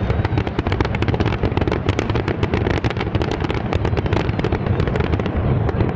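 Aerial fireworks in a finale barrage: many shells bursting in rapid succession, sharp bangs and crackles over a continuous low rumble.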